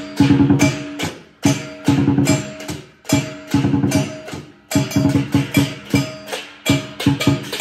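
Live lion dance percussion: a drum with cymbals and gong playing a fast, driving rhythm of sharp strikes, many of them left ringing.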